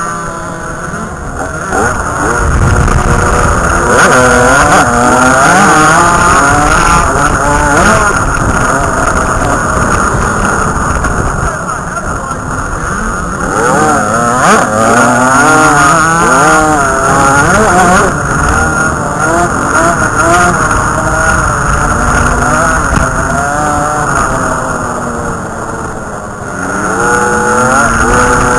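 Dirt bike engine revving hard while riding, its pitch climbing and falling again and again as it winds up and shifts or backs off. Near the end it eases off briefly, then revs up once more.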